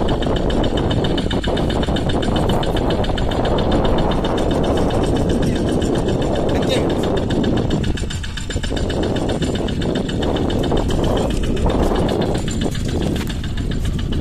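Small fishing boat's outboard engine running steadily, with a constant rush of wind and water over it.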